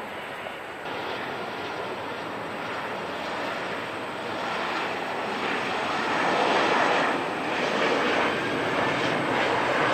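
Jet engines of a Boeing 737-800 airliner coming in to land, a steady rushing noise that grows louder as the plane nears and passes, then cuts off abruptly at the end.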